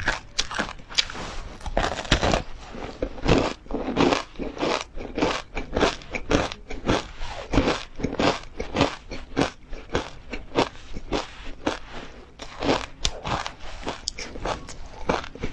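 Close-miked crunchy bites and chewing of ice cream coated in black sesame seeds, a rapid run of sharp crunches, several a second.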